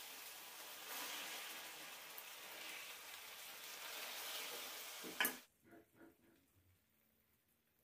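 Steady sizzling of hot food, which stops abruptly about five seconds in with a sharp clack, followed by a couple of faint knocks.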